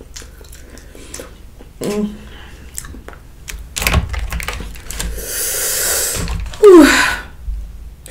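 Crawfish shells clicking and crackling as they are peeled by hand, then a long hissing breath through the mouth and a loud vocal groan falling in pitch near the end, a reaction to the burning heat of the spicy noodles.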